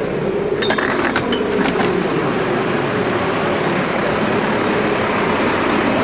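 Mack garbage truck's diesel engine idling steadily. About a second in comes a quick run of metallic clinks from the dumpster enclosure's swinging gate.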